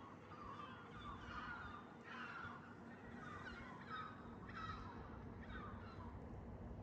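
Faint bird calls, a run of short chirps every half second or so, over a low steady rumble from the train.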